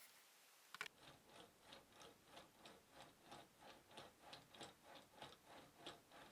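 Faint, even ticking at about three ticks a second, which starts after a quick double click about a second in.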